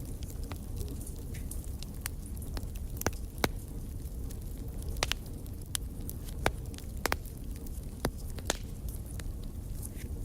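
Wood campfire crackling: irregular sharp pops and snaps, a few louder than the rest, over a low steady rumble.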